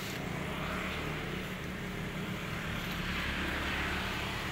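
Steady low drone of a vehicle engine running, with a faint rushing noise that swells a little in the middle.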